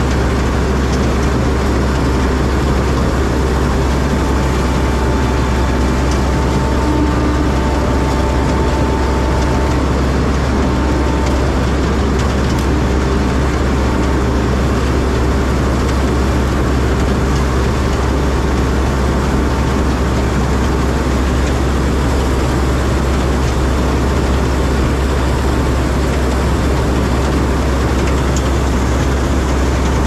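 Rice combine harvester running steadily while cutting ripe paddy: an even engine and machinery drone with a strong low hum.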